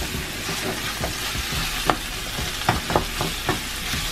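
Ground beef sizzling in a frying pan while a spatula stirs and breaks it up, scraping the pan, with a few sharp knocks of the spatula against the pan in the second half.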